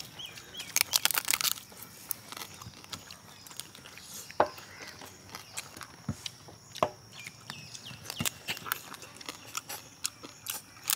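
Cooked mud crab shell crunching and cracking as it is bitten and broken apart by hand, in scattered sharp cracks.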